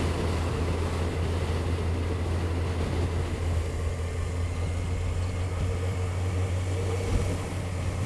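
Touring motorcycle engine running steadily at cruising speed with road noise, heard from the rider's seat; a small knock about seven seconds in.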